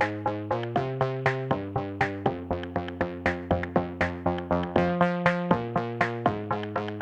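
Upbeat electronic background music: a steady beat of short plucked synth notes, about four a second, over changing chords.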